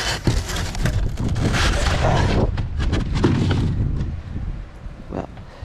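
Wind rumbling on the microphone, mixed with scattered knocks and rustles of packaging being handled; it eases off after about four seconds, leaving a couple of isolated knocks.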